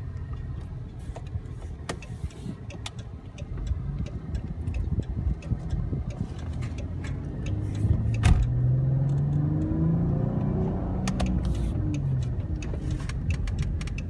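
Car engine and road noise heard from inside the cabin, the engine note rising as the car accelerates from about eight seconds in. A sharp knock just before the engine note rises, and scattered light clicks.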